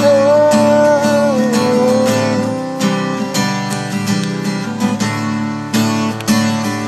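Music: a strummed acoustic guitar with a held melody line above it, which falls slightly in pitch and fades out about three seconds in.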